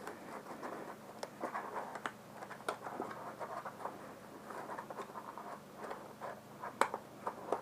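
Nylon pack straps and fabric rustling and scraping as they are threaded and pulled, with scattered light clicks and taps, the sharpest of them about seven seconds in.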